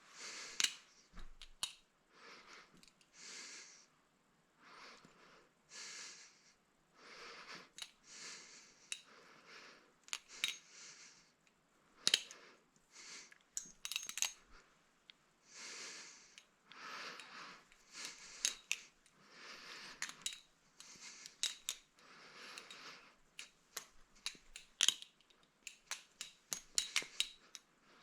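Palethius Bowie balisong being flipped: sharp metallic clicks and clacks as the handles and blade swing and strike one another, in irregular runs that come thicker near the end, between soft swishes.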